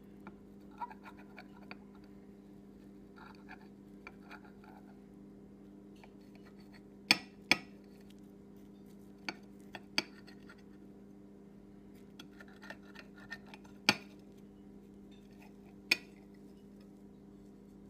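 A metal table knife scraping and cutting through a sugar-dusted pancake on a ceramic plate, with several sharp clinks as the knife tip strikes the plate. A steady low hum runs underneath.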